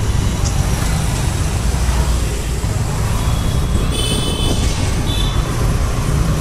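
Outdoor street noise in a lane: a steady low rumble with a brief high-pitched tone about four seconds in and a shorter one about a second later.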